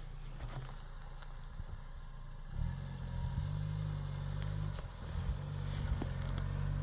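Ford Bronco's 2.3-litre four-cylinder engine running at low revs as it crawls over a deep rut on a dirt trail, getting louder about two and a half seconds in, with scattered crackles and clicks of the tyres on dirt and stones.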